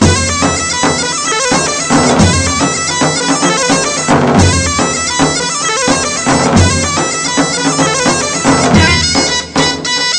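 Instrumental break in an Arabic dabke song: a fast, ornamented reedy wind-instrument melody over a driving drum beat.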